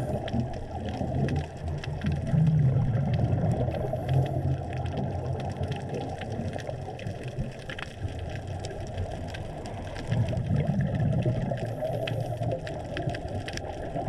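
Underwater sound from a diving camera: a scuba diver's exhaled regulator bubbles rumbling in surges a few seconds long, three times, over a constant crackle of fine clicks.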